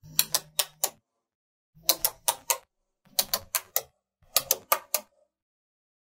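Slabs of small magnetic metal balls snapping together with sharp metallic clicks, in four quick runs of about four clicks each, roughly a second apart.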